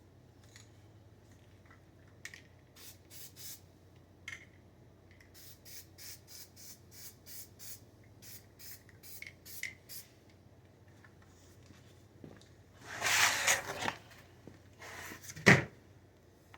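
Aerosol spray paint can spraying in short hissing bursts, about two a second, then a longer, louder spray. A sharp knock comes near the end.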